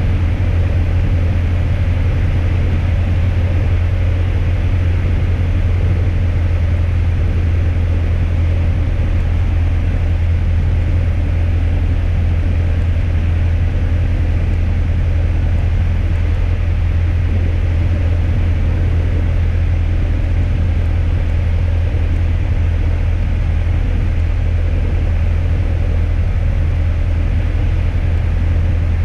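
Piper PA-28 light aircraft heard from inside the cockpit, a steady low drone of engine and airflow that does not change. The throttle is closed for a simulated engine failure during a glide approach.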